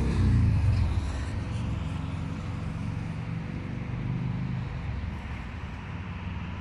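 Road traffic passing: a vehicle's engine note drops in pitch and fades over the first second or so, then a steady low traffic rumble.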